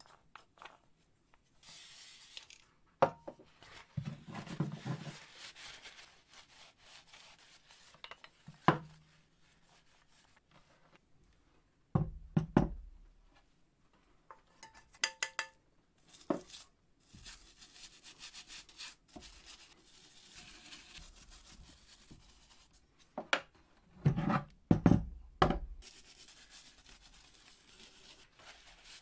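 Workshop handling sounds from cleaning a vintage cast-iron hand-crank drill press on a wooden bench: sharp knocks as metal parts are handled and set down, a cluster of them a little before the end, between stretches of brush scrubbing and rubbing.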